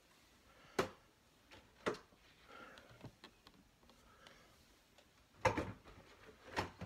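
A handful of sharp knocks and clatters as plastic-packaged toys are handled and set on a closet shelf, the loudest a short cluster about five and a half seconds in.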